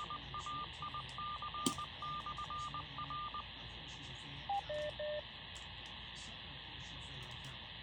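Amateur radio repeater sending its Morse code identification: one tone keyed on and off in short and long pieces over radio hiss, stopping about three and a half seconds in. About a second later comes a short three-note beep stepping down in pitch, the repeater's courtesy tone.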